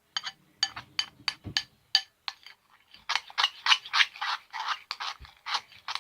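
Homemade toothpaste slime being squeezed in the hands, giving a run of sharp wet clicks and pops, about three or four a second. From about halfway it turns into a denser, continuous crackling squelch.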